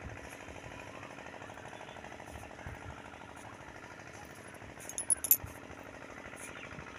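A machine running with a steady, rapid pulsing beat, even throughout. A few sharp clicks and clinks come about five seconds in.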